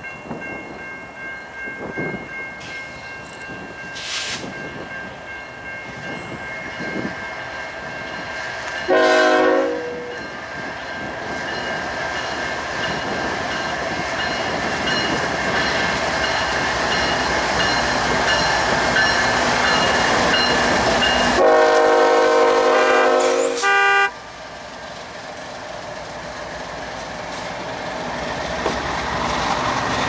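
Freight train led by GE ES44AC diesel locomotives passing, its rumble building as the locomotives come by, then railcars rolling past. Two horn blasts sound over it: a short loud one about nine seconds in and a longer one around twenty-two seconds that cuts off suddenly.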